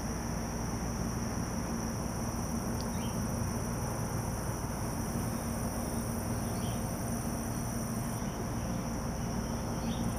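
Steady high-pitched chorus of insects, with a steady low hum underneath and a few faint short chirps.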